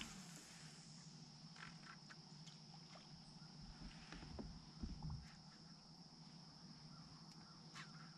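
Near silence: a faint, steady, high insect chorus of crickets, with a few light clicks and soft knocks about four to five seconds in.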